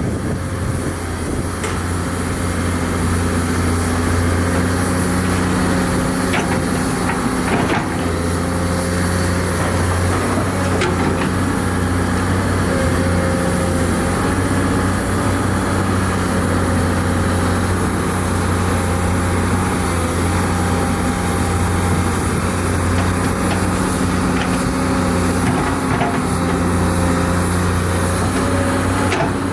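Heavy diesel engine of construction machinery running steadily under work, its pitch shifting a little, with a few brief knocks.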